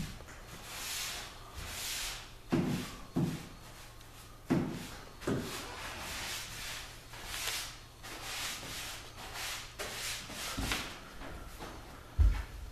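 Applicator brush stroking water-based finish across a wood floor in repeated swishing strokes, with a few low knocks as knees and hands shift on the boards. Near the end, a few heavy footsteps on the wooden floor.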